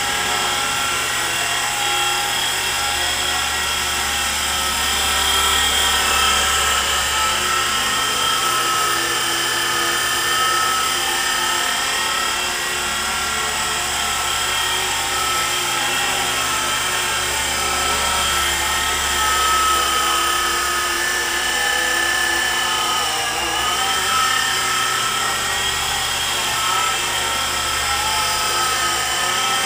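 E-flite Blade SR120 micro electric RC helicopter in flight: a continuous high whine from its electric motors and rotors, the pitch wavering slightly as it manoeuvres.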